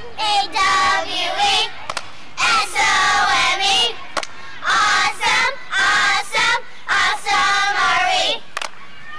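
Group of schoolchildren singing together in unison, in four short phrases with brief pauses between them.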